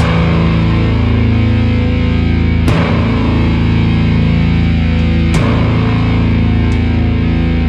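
Slow doom metal: heavily distorted electric guitars and bass holding heavy low chords, with a crashing hit and a change of chord about every two and a half seconds.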